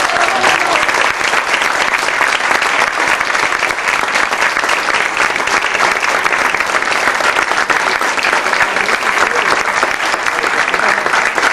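Audience applauding steadily: dense, continuous hand-clapping.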